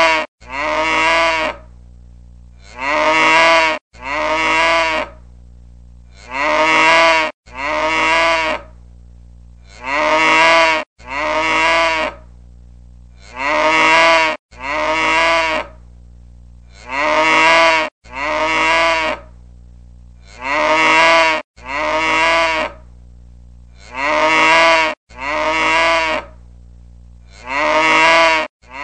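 A cow mooing over and over: one long moo about every three and a half seconds, each broken by a brief dropout near its start, like a repeating loop. A steady low hum lies beneath.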